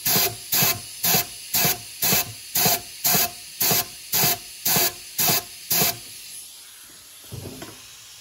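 Compressed air hissing out of a blow gun in about a dozen short, even bursts, roughly two a second, down one port of a Yamaha MT-10 four-into-two exhaust header; the bursts stop about six seconds in.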